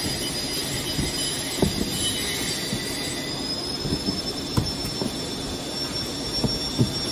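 Steady machinery noise with a high, thin whine that rises slightly in pitch about three seconds in, broken by a few light knocks.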